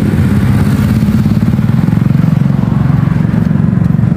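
An engine idling steadily nearby: a low drone with a fast, even throb that does not change.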